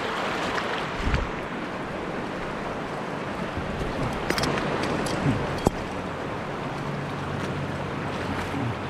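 Shallow river rapids rushing over rock ledges around a wader's legs: a steady rush of moving water, with a few sharp knocks about four and a half and six seconds in.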